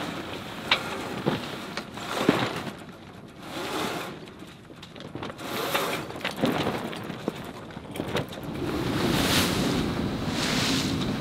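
Hank-on headsail being hoisted on a sailboat: sharp clicks and rustling as the sail goes up the forestay, over wind and water noise. The wind and water rush grows steadier and louder from about eight seconds in as the sail fills.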